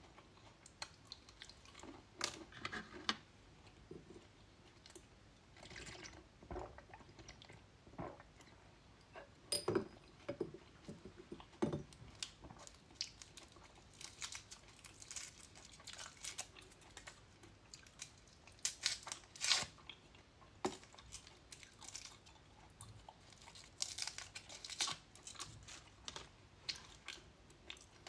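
Close-miked eating of candy: bursts of biting, crunching and chewing on sweets and lollipops, separated by quieter gaps with scattered small clicks.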